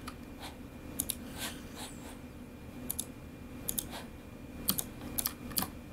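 Computer mouse and keyboard clicks: a dozen or so scattered, sharp clicks, irregularly spaced and now and then in quick pairs.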